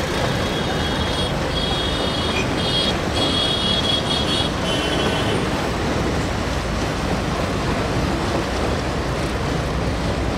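Container freight train wagons running along the rails, a steady noisy rumble mixed with road traffic from the roads alongside. A high squeal comes and goes between about one and five seconds in.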